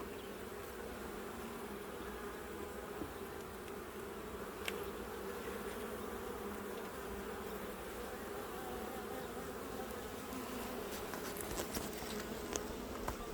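Honeybees buzzing steadily around an open hive during a frame-by-frame inspection. A few light clicks come through, most of them near the end.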